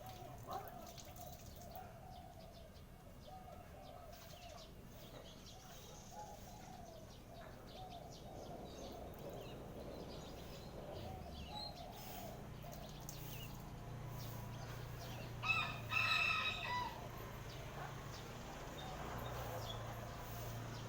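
A rooster crowing once, about fifteen seconds in, over a faint steady low hum.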